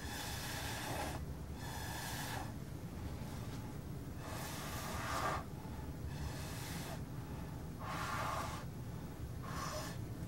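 A person blowing out hard breaths, six puffs of about a second each with short pauses between.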